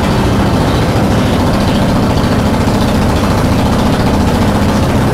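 Small ride-on tourist train's motor running steadily while the train moves, with a constant low engine drone and no change in pitch or level.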